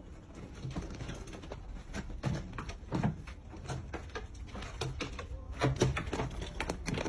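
Cats fighting at close quarters: an irregular run of scuffling knocks and clicks as their bodies and claws hit the wooden cage and floor, with a few heavier thumps about three seconds in and near the end.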